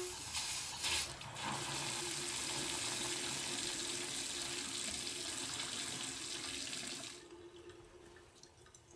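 Bathroom sink faucet running full, water pouring into the basin with a couple of louder spurts in the first second and a half, then cut back to a thin trickle about seven seconds in. The water running through means the refilled water heater is full.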